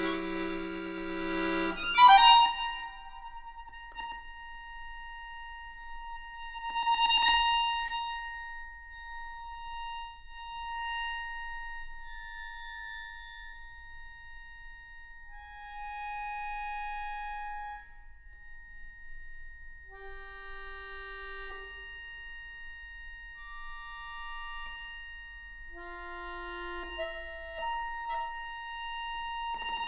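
Solo accordion playing contemporary classical music. A low chord is cut off by a sharp loud accent about two seconds in. Then come long high held tones, with short notes entering and fading and another accent about seven seconds in.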